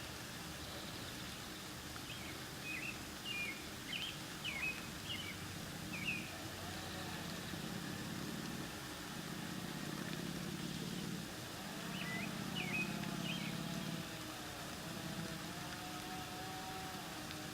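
Faint outdoor background: a low rumble that swells and fades, with short bird chirps in two brief runs, one early and one past the middle.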